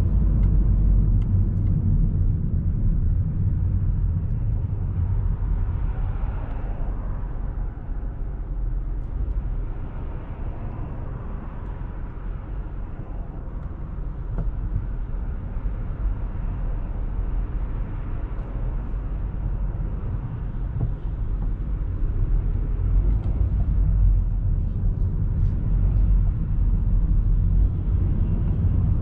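Car driving through city traffic: a steady low rumble of road and engine noise, easing slightly in the middle and growing louder again near the end.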